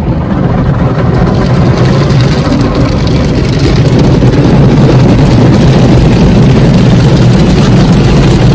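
Rotating brushes of an automatic car wash scrubbing over the car's windshield and bodywork, with water and foam spraying, heard from inside the cabin: a loud, steady rumbling swish that grows a little louder about halfway through.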